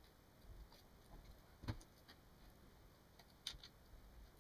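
Near silence with two faint clicks, one about a second and a half in and a sharper one at about three and a half seconds: small laptop screws and a screwdriver being handled and set down.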